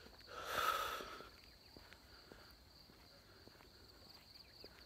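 Insects chirring steadily at a high pitch in the background, with faint footsteps on a paved path. A short breathy rush of noise about half a second in lasts about a second and is the loudest sound.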